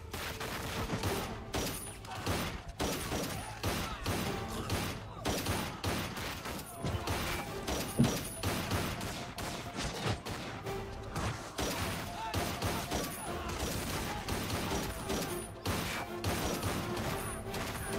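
Movie gunfight sound effects: rapid, continuous gunfire from a shootout, with the film's background score underneath.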